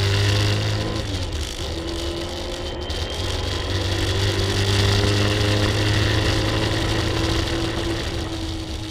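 A 1967 Camaro's engine pulling hard under acceleration, heard from inside the cabin. It breaks briefly about a second in, then rises slowly in pitch and fades near the end.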